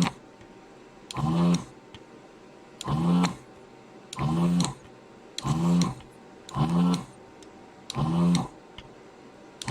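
ZD-915 desoldering station's vacuum pump buzzing in short bursts, about half a second each, repeated roughly every second and a bit as the desoldering gun's trigger is pulled again and again to suck solder out of the through-holes.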